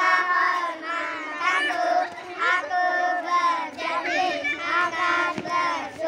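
A small group of young boys chanting a scout yel-yel (patrol cheer) in unison, a half-sung chant of held notes with short breaks between phrases.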